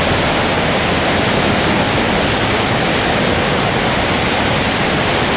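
Water rushing down an enclosed waterslide tube with a rider sliding through it: a steady, loud rush of water noise.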